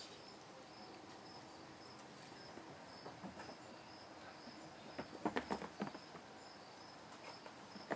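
An insect chirping steadily, a short high pulse about twice a second, like a cricket heard through the porch screens. A little after five seconds in, a brief flurry of soft scuffs and pats as the kittens scamper on the carpet.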